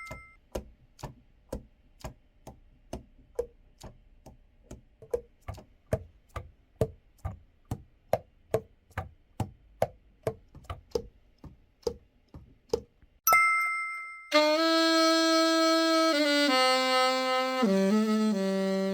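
Saxophone keys tapped shut one after another, a soft click with a faint popping pitch about three times a second. About 13 s in a bright two-tone chime sounds, then the overhauled Selmer Series III Jubilee alto saxophone plays sustained notes stepping down into its low register.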